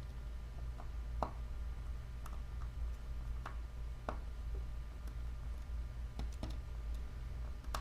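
Scattered faint, sharp clicks of a precision screwdriver and small tools against the iPhone's internal metal bracket as tiny screws are driven in, over a steady low hum.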